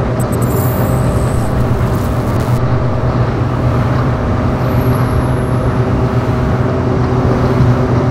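A 1991 Yamaha TZR125's 125cc liquid-cooled single-cylinder two-stroke engine running at a steady speed on the move, with road and wind noise, echoing inside a road tunnel.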